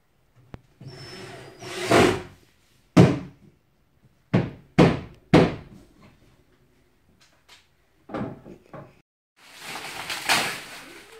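Wooden bed frame being assembled: about five sharp knocks and thuds on the panels in the first half, then a stretch of rustling near the end as a plastic-wrapped mattress is handled.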